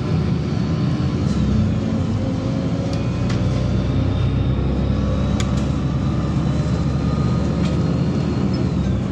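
Inside a LiAZ-5292.67 compressed-natural-gas city bus under way: a steady engine hum and road noise, with a faint high whine. There are a few light rattles.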